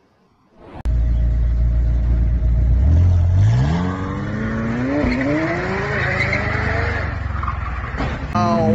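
McLaren supercar's twin-turbo V8 accelerating hard: a loud low engine note cuts in about a second in and rises steeply in pitch from about three seconds in, with one brief dip, while the tyres screech as the car loses grip. Near the end a person's voice shouts.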